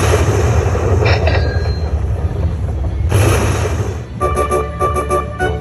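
Aristocrat Lightning Link Tiki Fire slot machine's Major Jackpot celebration: a deep rumble with two noisy crashes, one at the start and one about three seconds in. From about four seconds in, a rapid chiming jingle plays as the win meter starts counting up the jackpot credits.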